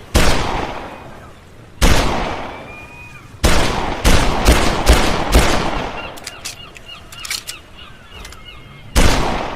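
Desert Eagle pistol firing single shots, each with a long echoing tail. There are two spaced shots, then a quick run of five about half a second apart, a pause of a few seconds, and one more shot near the end.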